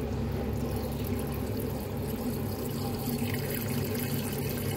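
Water pouring in a steady stream from a bottle's spout into a shallow resin water bowl, splashing and bubbling as the bowl fills.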